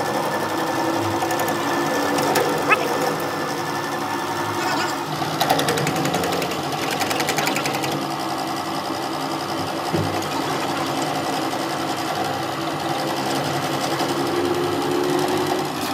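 Drill press running steadily as its bit drills a hole into a machined metal collar fitted on a camshaft, a continuous mechanical whir.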